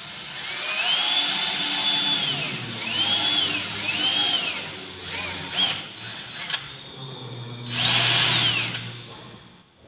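Cordless drill boring into a metal sliding-door frame, run in bursts on the trigger: each time the motor speeds up to a high whine, holds, then winds down. A long run comes first, then several shorter ones, and a loud last run about eight seconds in.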